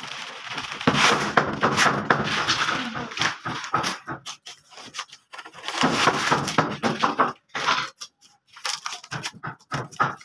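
Thin wooden door-skin veneer being torn from an old door and its loose strips handled, a dry crackling and rustling in two bouts, with scattered sharp clicks near the end.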